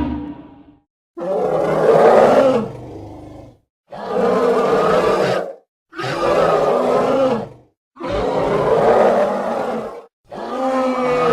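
A series of roar sound effects: five separate roars, each lasting about one and a half to two seconds, with short silences between them.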